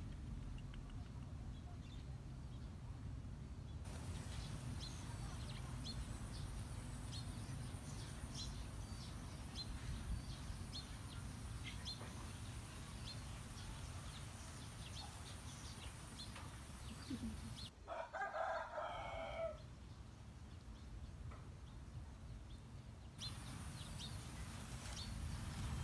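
A rooster crows once, about two-thirds of the way through, over a steady low rumble and faint bird chirps.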